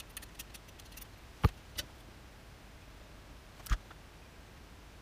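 Small clicks and sharp knocks of tweezers and a surface-mount electrolytic capacitor being handled on a circuit board: a few light clicks, a loud knock about a second and a half in followed quickly by a softer one, and another knock just before four seconds.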